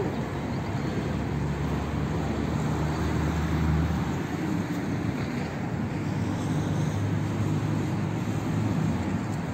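Steady rumble of road traffic, a little heavier in the first few seconds.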